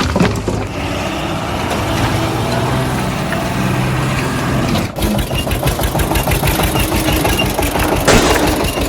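Engine sound running steadily with an even hum, then after a sudden cut about five seconds in, a diesel engine idling with a fast, regular knock.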